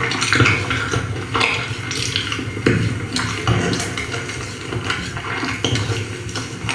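Dishes and utensils clattering in a run of quick, irregular clicks and scrapes.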